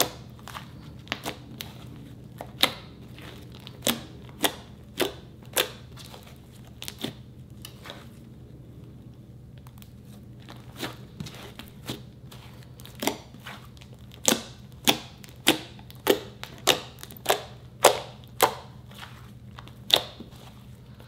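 Green ICEE slime made with instant snow being pressed and stretched by hand, its air pockets popping with sharp clicks. The pops are sparse at first and come faster and louder in the last several seconds. A steady low hum runs underneath.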